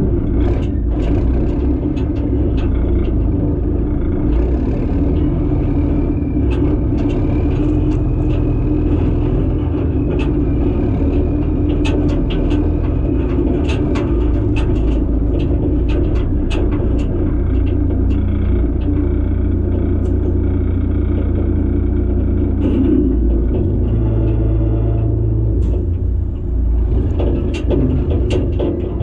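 Kubota KX080 excavator's diesel engine running steadily under load, with frequent sharp knocks and cracks from the digging.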